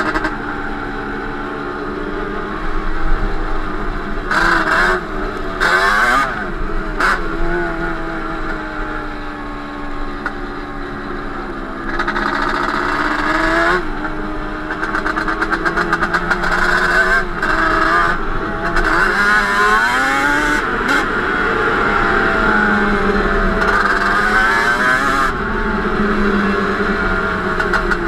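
Yamaha Banshee 350's twin-cylinder two-stroke engine, with Toomey T5 expansion pipes, running under way with the revs rising and falling repeatedly as the throttle is worked.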